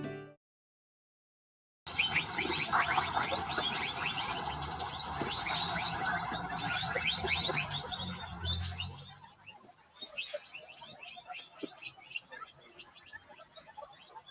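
Many small birds chirping rapidly and densely, over a low hum. The chirping starts about two seconds in and thins out to scattered chirps for the last few seconds.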